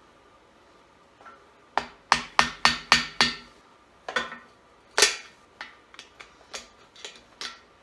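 Hammer striking the end of a screwdriver that is driven against a core (freeze) plug in a small-block Chevy engine block, bending the plug to work it loose. A quick run of about six ringing blows starts about two seconds in, then come two heavier single blows, the louder one about five seconds in, then lighter taps near the end.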